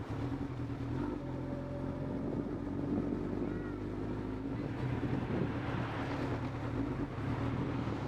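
Motorcycle engine running steadily at cruising speed, heard from the moving bike. A rush of noise swells around five seconds in.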